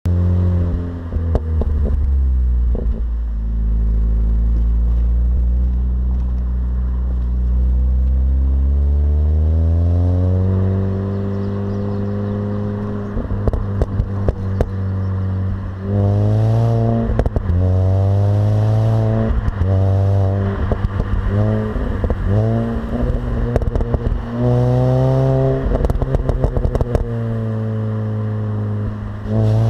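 Mini Cooper S R53's supercharged 1.6-litre four-cylinder engine on its stock exhaust, its note climbing slowly in pitch about eight seconds in, then revving up and dropping back many times in quick succession later on. Short sharp clicks and crackles are scattered throughout.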